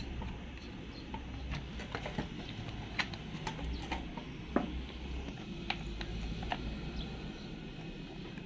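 Scattered small clicks and taps of hands working the brush cutter's plastic engine housing, rubber fuel-tank pad and recoil starter back into place, at irregular intervals.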